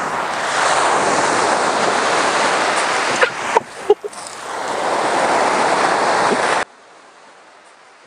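Steady rushing of wind buffeting the microphone, mixed with lake waves washing on the gravel shore. It briefly dips with a few short sharp sounds about three and a half seconds in, then cuts off abruptly near the end.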